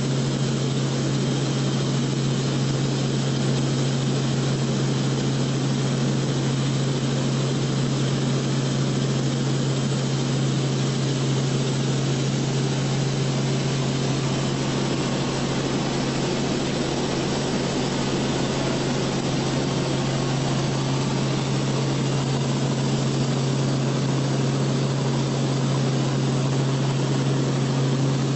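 Aircraft engine drone heard from inside the cabin: a steady, unchanging low hum with a wash of engine and air noise over it.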